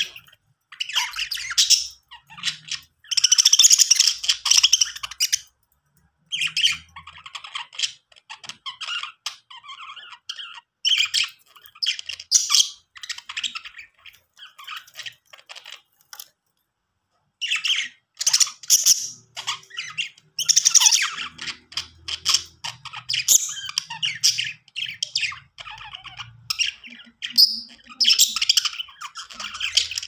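Budgerigars chattering in quick high bursts separated by short pauses, with a silent break of about a second just past the middle.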